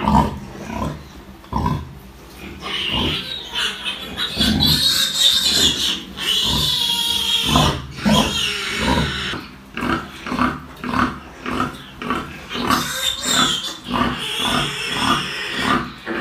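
A nursing sow grunting in short rhythmic grunts, about two a second, as her piglets suckle, the grunting of a sow letting down milk. Piglets squeal over it from about three seconds in until about nine seconds, and again a little after twelve seconds.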